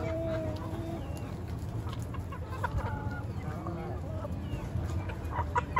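A flock of chickens clucking and calling while they feed, many short overlapping calls, with one drawn-out call in the first second.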